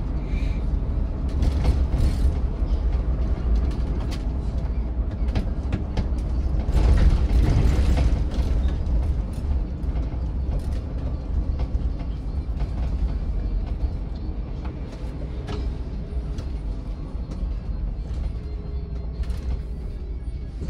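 City bus under way: a steady low rumble of engine and road with frequent creaks and rattles from the body and fittings, loudest about seven seconds in and easing off after that.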